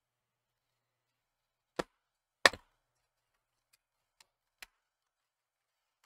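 Hard plastic knocks from an HP TPN-C129 laptop being handled as its lid is swung open and the screen laid back flat on the desk. There is a sharp knock, then a louder one about half a second later, then a few faint taps.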